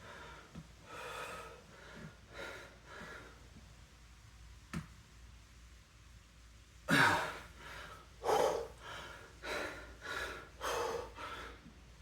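A man's heavy breathing under effort during a set of weighted single-leg deadlifts: softer breaths, then a run of louder, forceful exhales from about seven seconds in. One sharp click comes about five seconds in.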